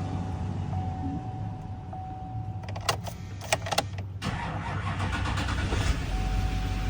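A car's interior with a steady low hum and a repeating chime tone, broken by a few sharp clicks a little after the middle, as keys and the ignition are worked after key programming.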